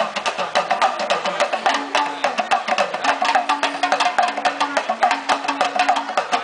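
Tama, the Senegalese talking drum, played fast with a curved stick. The strokes are dense and rapid, with quick pitch bends as the drum is squeezed under the arm. A low steady tone comes and goes beneath the drumming.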